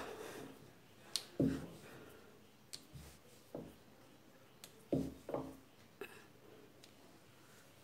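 Wooden rolling pin rolling out small puri dough rounds on a stone counter: scattered soft knocks and taps of the pin and hands against the stone, irregularly spaced, with a couple of sharper clicks.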